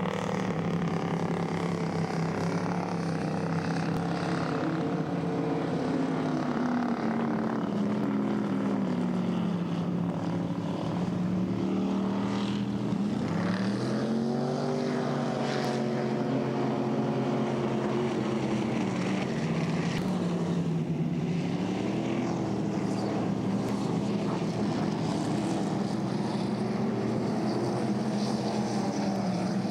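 Racing inboard boat engines running hard: a steady engine drone whose pitch sags and climbs again several times, most sharply about halfway through.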